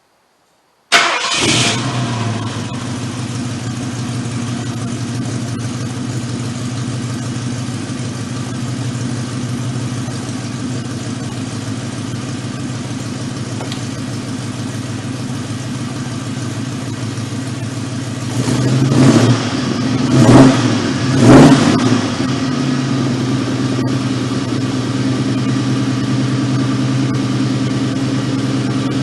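Car engine cranking and catching about a second in, then idling steadily. Around two-thirds of the way through it is revved three times in quick succession, then it settles back to idle.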